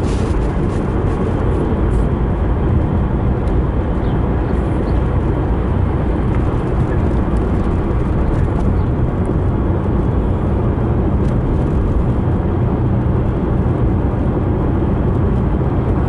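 Steady low rumble of a car driving at town speed, heard from inside the cabin: engine and tyre noise on the road.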